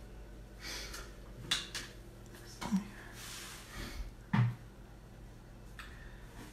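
A few soft knocks and clatters of kitchen items being handled, with brief rustling and a faint steady hum underneath.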